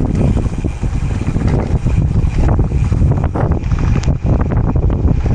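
Wind buffeting the microphone of a camera on a moving bicycle, a constant loud rumble with many short rattles and knocks from the tyres on a rough road.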